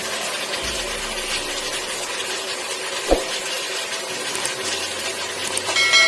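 Beef chunks sizzling steadily as they pan-fry in a stainless steel pot. There is a single sharp thump about halfway through, and near the end a click with a short ringing chime.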